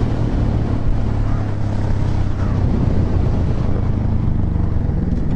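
Honda Grom's small single-cylinder four-stroke engine running steadily while riding, with wind buffeting the microphone.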